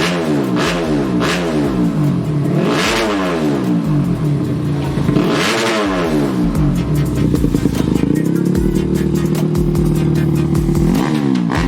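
Modified 130cc underbone motorcycle engine revved in quick repeated throttle blips while being tuned, with two bigger revs. Near the end it is held at a steady raised speed for a few seconds, then blipped again.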